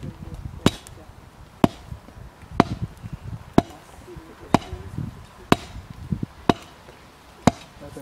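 Hammer blows on a hot bloomery iron bloom held with tongs on a wooden stump, a sharp strike about once a second, eight in all: the freshly smelted iron sponge being compacted.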